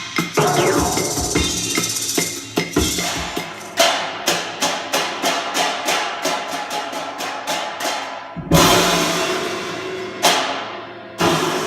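Recorded music with dense percussion, sharp strikes about three or four a second and a heavy accent about three-quarters of the way through, played back over Elac Debut B6.2 bookshelf speakers and picked up by a phone microphone.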